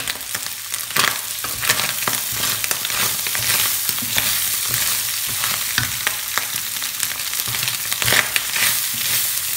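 Minced beef with freshly added diced carrots and celery sizzling in a hot frying pan, with a wooden spoon stirring and scraping through it in many short strokes.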